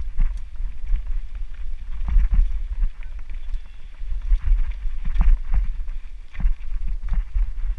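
Mountain bike rattling and clattering over a rough dirt trail on a fast descent, with irregular knocks from the bumps. A heavy wind rumble buffets the microphone.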